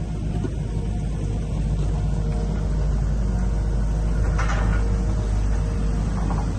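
Steady low rumble of a running vehicle engine, with a brief hiss of noise about four and a half seconds in.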